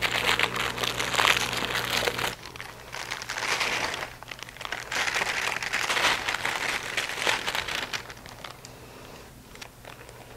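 Crinkling plastic packaging as sleeves of Ritz crackers are opened and the crackers slid into a zip-top plastic bag. The sound comes in bursts of rustling and is fainter near the end, as the bag is handled and closed.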